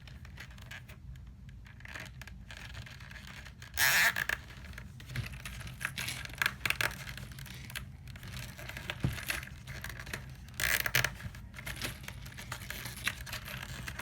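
Hands handling a cork log, chain and a zip tie: scraping and rustling with many small clicks, and two louder brief scrapes about four seconds and eleven seconds in.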